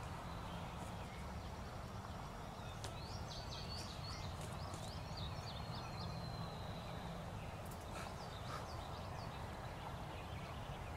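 A songbird singing a quick run of high chirps, starting about three seconds in and fading out a few seconds later, over a steady low rumble, with a few faint clicks.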